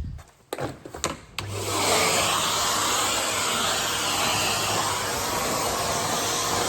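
A few clicks and knocks, then a Henry canister vacuum cleaner switches on about a second and a half in and runs steadily, with a low hum under its rushing noise, as it sucks up beach sand from a car.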